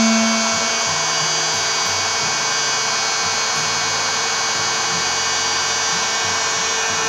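Heat gun running steadily: the whine of its fan motor over rushing air, as it softens an isolon foam petal for shaping.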